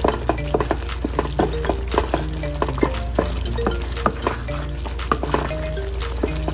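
Wooden spatula stirring thick tomato spaghetti sauce in a frying pan, with repeated short scrapes against the pan over the sizzle of the simmering sauce.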